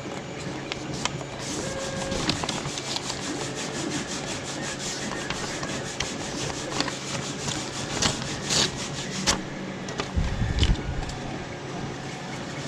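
A sheet of paper rubbing and rustling as it is worked into place under a resin printer's build plate. Scattered taps and clicks come from handling the machine, with a low knock near the end.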